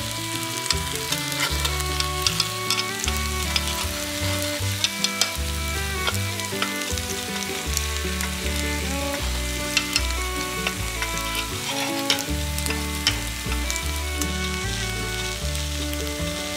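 Takoyaki batter sizzling and crackling in the wells of a hot takoyaki pan, over background music.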